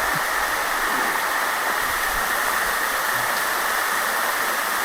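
Steady rush of a waterfall: water pouring down the rock face in a continuous, even roar of spray.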